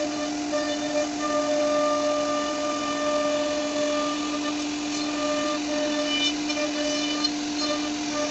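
CNC router spindle running at one steady pitch while carving wood, with higher whining tones coming and going as the bit cuts.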